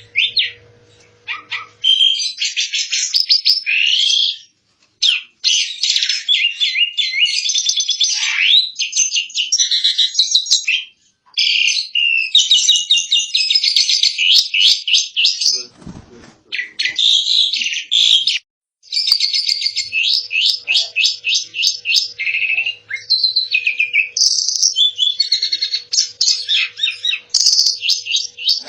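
Asian pied starling (jalak suren) singing a long, rapid, chattering song of rattling trills and squeaky whistled notes, in phrases separated by brief pauses.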